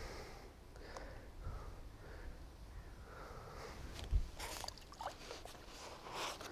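Quiet outdoor ambience with faint rustling and handling noises and one soft low thump about four seconds in.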